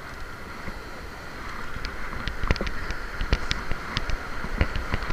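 Surf washing over rocks as a steady hiss, with wind on the microphone. From about two seconds in, irregular sharp clicks come through while a spinning reel is cranked.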